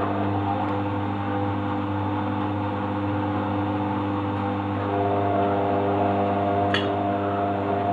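Washing machine running: a steady motor hum with several whining tones over it. About five seconds in, more tones join and it gets a little louder; a single click sounds near the end.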